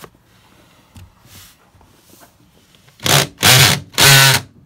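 Cordless drill with a hole saw cutting into vinyl plank flooring, run in three short bursts of the trigger starting about three seconds in. The motor whines at a steady pitch in each burst. Before the bursts there is only faint rubbing and handling.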